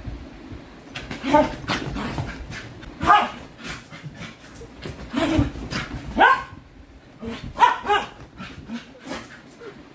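Dog barking, about six barks spaced irregularly, some a second or more apart, with short clicks between them.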